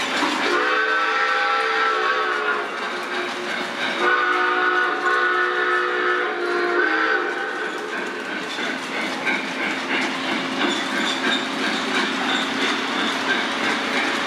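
Lionel model trains running on the layout track: a steady rumble and clatter of wheels and motors. Over it, a locomotive's onboard sound system gives two long chord blasts, the first about half a second in and the second at about four seconds, each lasting two to three seconds.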